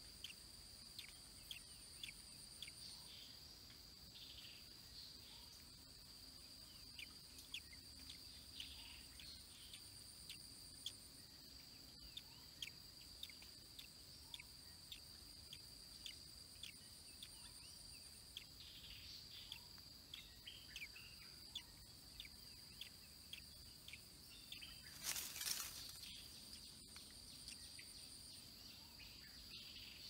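Faint steady high insect trill, like crickets, with short high bird chirps repeating every second or so. A brief noisy burst, like a rustle, comes about five seconds before the end.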